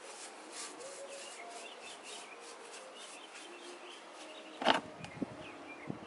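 A hand tool rubbing and scraping over the surface of a cement baluster in short repeated strokes, with birds chirping in the background. A sharp knock comes a little over two-thirds of the way in, followed by a couple of lighter clicks.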